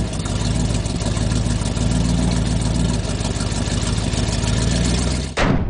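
Sound effect of a large truck's engine running steadily, cutting off shortly before the end.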